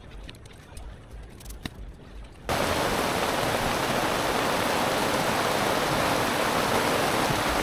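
Faint outdoor ambience with a few light clicks, then, about two and a half seconds in, steady rain starts suddenly and keeps falling.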